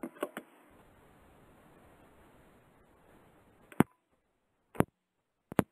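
Faint steady hiss of a phone-line broadcast with a few soft clicks. About four seconds in a loud click comes and the line goes dead to total silence, broken by two more sharp clicks: the call-in broadcast being disconnected at the end of the show.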